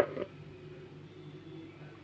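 A single sharp clink of a kitchen dish or utensil at the start, with a smaller knock just after, then quiet with a steady low hum.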